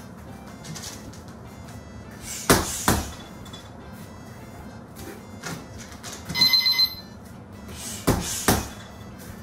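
A heavy punching bag struck twice by gloved blows, then a short electronic beeping from a boxing round timer, then two more solid hits on the bag near the end.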